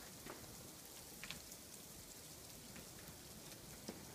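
Sleet falling: a faint, steady fine hiss of ice pellets, with a few sharper ticks standing out.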